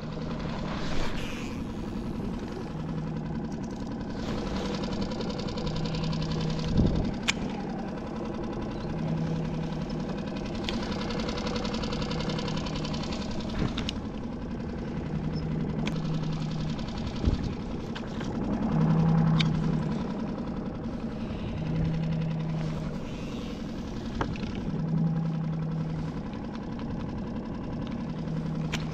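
Small outboard motor running steadily at trolling speed, with a low hum that swells about every three seconds and a few brief clicks and knocks.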